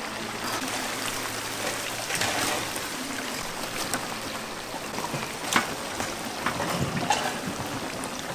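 Chicken deep-frying in hot oil in a cast-iron cauldron: a steady sizzling crackle, with a few sharp clicks and knocks of utensils, the loudest about five and a half seconds in.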